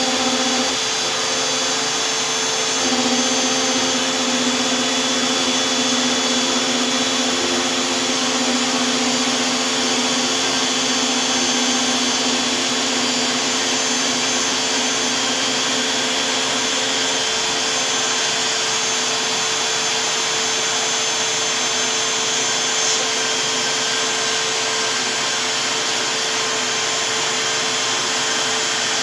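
DeWalt 611 compact router spinning a single-flute 1/8" bit as the LowRider 2 CNC mills HDPE sheet: a steady, loud whine and rush from the router and cutter. A lower hum underneath stops about two-thirds of the way through.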